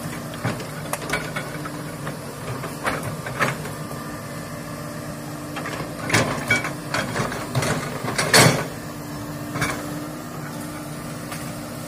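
Komatsu hydraulic excavator's diesel engine running steadily, with sharp cracks and knocks as its bucket works through brush and felled wood, a burst of them about six seconds in and the loudest crack about eight seconds in.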